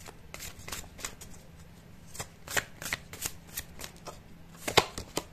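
A deck of oracle cards shuffled by hand, the cards clicking and slapping against each other in irregular snaps. The sharpest snap comes a little before five seconds in.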